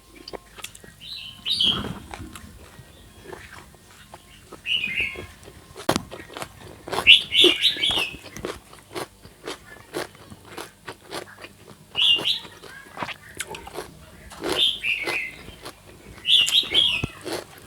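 Close-up eating sounds: crunching and chewing of fresh vegetables such as cucumber, with many sharp clicks and short crackly bursts every few seconds.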